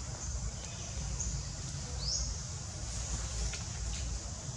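Forest ambience: a steady high insect buzz over a low, uneven rumble, with one short rising chirp about two seconds in.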